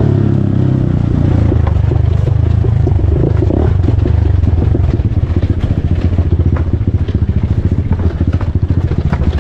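Off-road motorcycle engine running at low revs, settling into a fast, even putter about halfway through, with light clicks and clatter over it.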